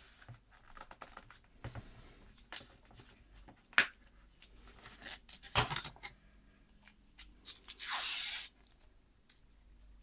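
Handling of a USB Wi-Fi adapter and its cardboard packaging: soft rustles and light knocks, a sharp click about four seconds in and another about five and a half seconds in, and a harsh scraping rasp lasting about half a second a little after eight seconds.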